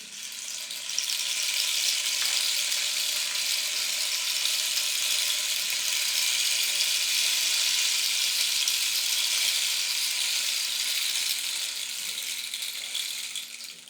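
Rain stick turned over so its seeds or pebbles trickle down inside, giving a steady pattering hiss like rain falling on a roof. It swells in over the first second and thins out a little near the end as the fill runs down.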